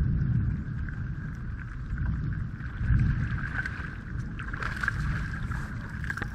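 Wind and water noise around a bass boat, a fluctuating low rumble, with a faint steady whine over it.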